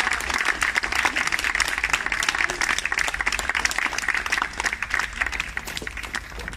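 An outdoor group of people clapping their hands in a sustained round of applause that thins out near the end.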